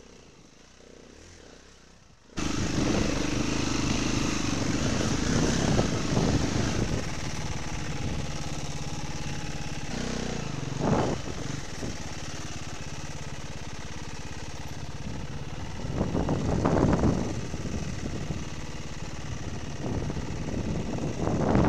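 Enduro dirt bike engine running while being ridden on a trail. It comes in abruptly after about two seconds of low sound, then goes on steadily with several louder surges of throttle.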